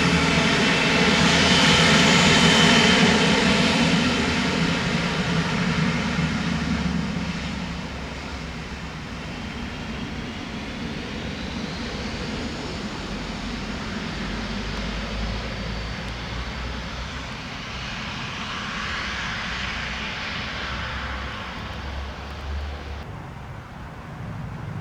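Jet engines of a Cessna Citation XLS+ business jet, its twin Pratt & Whitney PW545C turbofans, loud at first and fading over the first several seconds to a steadier, lower whine. About halfway through a tone rises in pitch, and near the end the sound swells briefly again.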